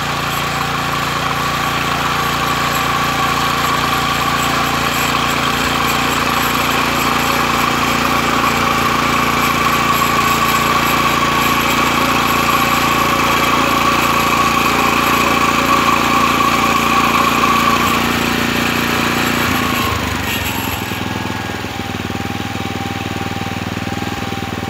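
Walk-behind tiller's small air-cooled petrol engine running steadily under load as its tines churn the soil. About twenty seconds in it drops to a lower, quieter run.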